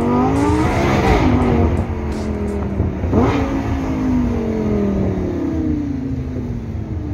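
Car engine revving: its pitch climbs over the first second and eases back, then a sharp rev about three seconds in slowly winds down.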